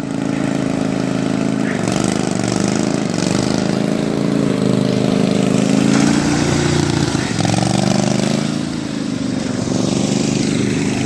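Pulley-swapped riding lawnmower engine running, its pitch rising and falling as the throttle changes.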